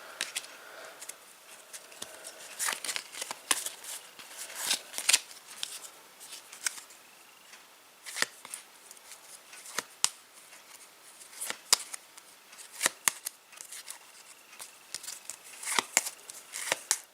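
Panini Adrenalyn XL trading cards being handled and flicked through one at a time: irregular crisp snaps and slides of card stock.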